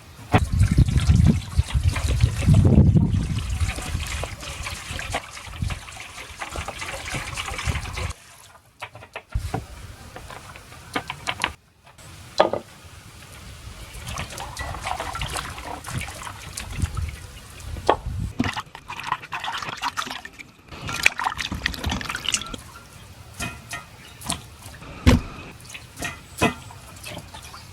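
Water running and trickling, with scattered knocks and clicks of handling.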